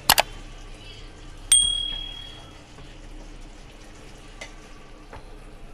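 Two sharp clicks, then a single ringing clink of a metal cooking utensil that fades over about a second. Under it is the faint steady sizzle of the curry in the pan.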